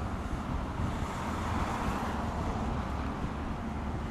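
Canadair CL-215T/415 water bomber's twin turboprop engines droning as it passes low overhead, swelling a little about halfway through. Wind rumbles on the microphone underneath.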